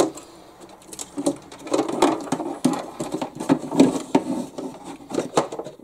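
Handling noise inside the plastic hull of an RC model boat: irregular small clicks and knocks as a hand works among the wiring to take out a screw holding a plate down.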